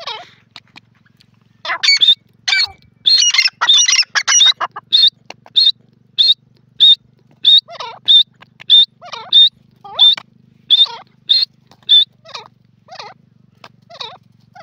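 Grey francolin calling at close range: a loud series of shrill notes, repeated about one and a half to two times a second, some followed by a lower falling note. The series starts about two seconds in and is densest just after it begins.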